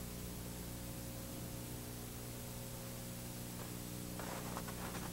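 Steady hiss with a low electrical hum underneath: the background noise of an old VHS tape recording. A faint rustle comes in near the end.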